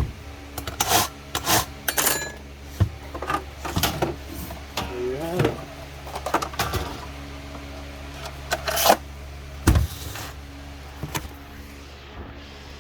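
Irregular clicks, knocks and metal-on-plastic rubbing from a Stihl chainsaw and its tools being handled as the bar and chain are fitted, with a short squeak about five seconds in, over a steady low hum.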